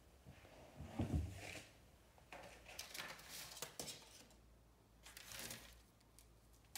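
Handling noise from the camera being moved closer: a low thump about a second in, then soft rustling and scraping.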